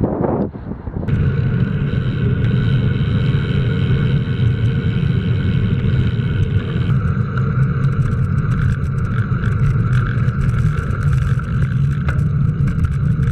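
Steady rumble of wind and road noise on a moving action camera riding in traffic, with abrupt changes in the sound at clip cuts about a second in and about halfway through.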